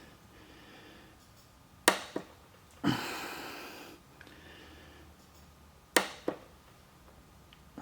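Tools being handled on the bench: two sharp clicks, each followed quickly by a lighter one, about four seconds apart, with a short rustling scrape between them.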